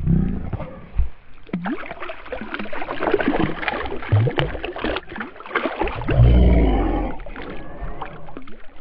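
Water splashing and gurgling close by, irregular and busy, with a loud low rumble about six seconds in.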